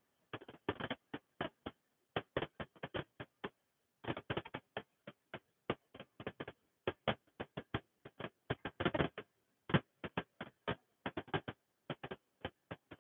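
Irregular short clicks and crackles, several a second, with dead silence between them.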